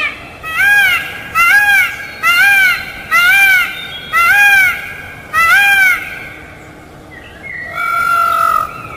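Peafowl calling: a series of six loud, arching calls about a second apart, each rising and falling in pitch, then after a short pause one longer call held at a steady pitch near the end.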